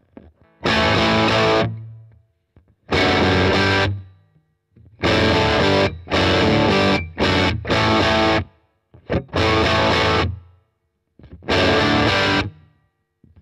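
Electric guitar, a Custom Shop '58 Les Paul, played through a Marshall DSL20 combo amp with a 12-inch Celestion speaker, its classic gain channel turned fully up. It plays a rock riff of heavily distorted chords, about eight of them, each ringing for a second or so and then cut off sharply, with short silences between.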